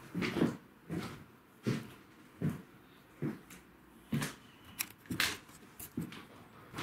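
Footsteps walking across a room, an even stride of about one step every three-quarters of a second, with a couple of sharper clicks in the middle.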